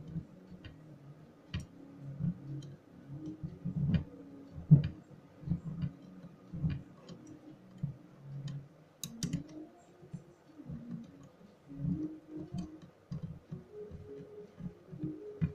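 Scattered small clicks and taps of hands working a hard disk drive and its circuit board on a wooden table, handling small screws and a screwdriver. The sharpest clicks come about five and nine seconds in.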